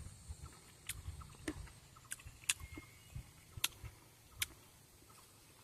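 A person chewing food: faint, irregular sharp clicks and crunches, about six of them, over a low rumble.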